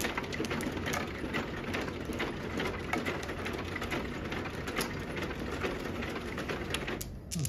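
Plastic mahjong tiles clicking and clacking as they are drawn and discarded onto the felt of an automatic mahjong table, many irregular quick clicks over a steady background noise that falls away near the end.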